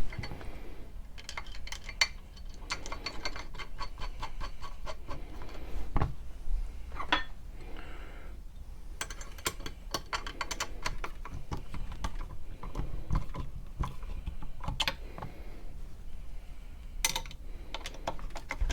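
Runs of quick small metal clicks and clinks as bolts and washers are fitted and turned down to fasten a reloading press mounting plate, with a few sharper single clicks between the runs.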